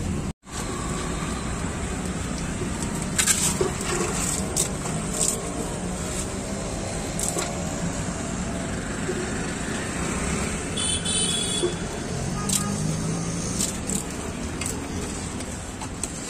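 Street ambience of steady traffic noise, with scattered sharp clinks and knocks of serving spoons and plates. All sound drops out briefly about half a second in.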